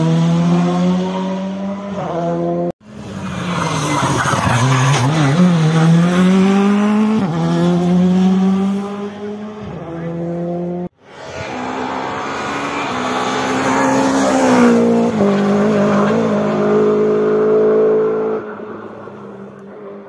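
Rally car engines at high revs, their pitch stepping at gear changes, dropping off and climbing again as the cars brake and accelerate. The sound is in three separate passes, cut off abruptly twice between them, and the last one fades near the end.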